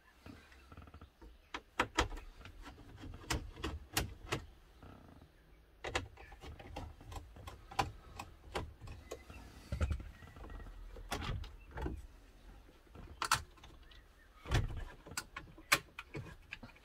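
Irregular plastic clicks and knocks from hands working the VW Crafter's dashboard trim around the radio and air vent, with a couple of heavier thuds near the middle and toward the end.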